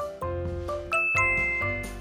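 Bouncy background music with a steady bass beat and a mallet-like melody. About a second in, a bright two-note chime rings over it, the second note lower and held.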